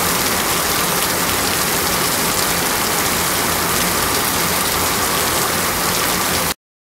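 Heavy rain pouring down in a steady, dense hiss, which cuts off suddenly near the end.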